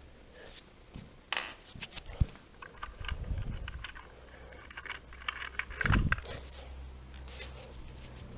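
Hands working a LEGO candy machine: plastic bricks and its mechanism clicking, rattling and knocking, with a sharp knock about two seconds in and a heavier thump about six seconds in.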